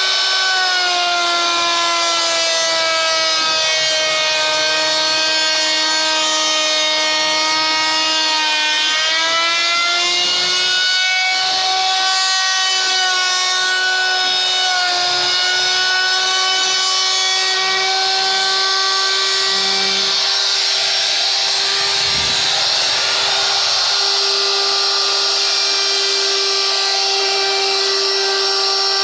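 Handheld electric plunge router running at speed while cutting wood, a steady high whine. About eight seconds in the pitch sags slightly under load, then comes back up.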